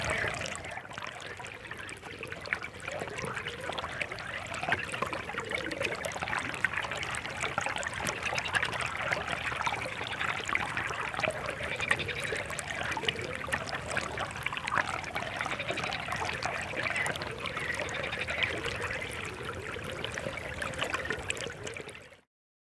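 Water trickling and babbling: a steady light splashing that stops abruptly near the end.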